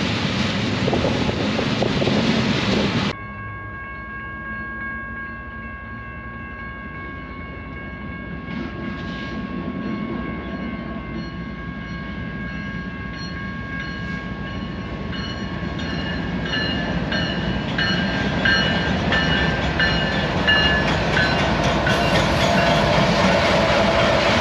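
A rail train rumbles loudly for the first three seconds, then cuts off. After that, BNSF diesel locomotives leading a grain train approach and pass, growing steadily louder. A long steady horn-like tone sounds as they come in, then turns into a quickly repeating ringing as the locomotives draw close.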